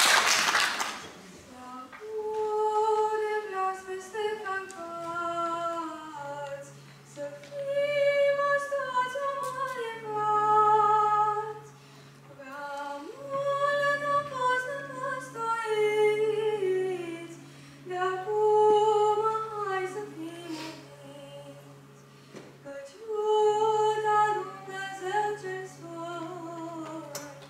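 Applause dies away in the first second, then a boy's unbroken voice sings a slow patriotic song solo, in phrases a few seconds long, over a steady low held drone note.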